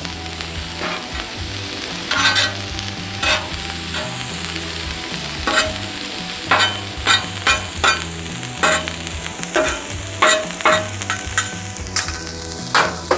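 Beef patties and sliced onions sizzling on a Cuisinart 360 griddle, with a steady frying hiss. Metal spatulas scrape and clack on the griddle top a dozen or so times, at irregular intervals, as the onions are turned.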